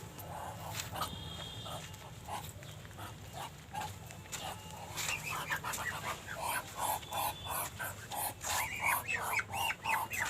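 Muscovy duck calling in a run of short, rapid notes, sparse at first, then coming about three a second and louder from about halfway through: the dragon-like sound the bird is known for.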